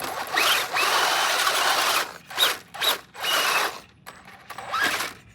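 Electric RC car motor whining as it is throttled in bursts: one long run of about a second and a half, then several short revving blips, each rising quickly in pitch.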